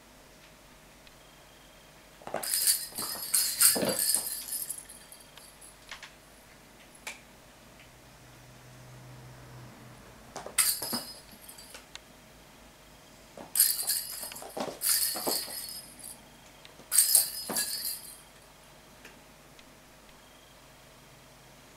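A toy of two joined pink balls rattling and jingling as a kitten bats and chases it across a wooden floor, in four bursts: a long one a few seconds in, then three shorter ones in the second half.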